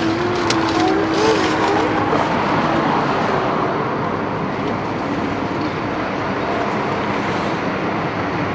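Steady city street traffic noise, with road vehicles passing; a held engine-like tone sounds over it for the first two seconds.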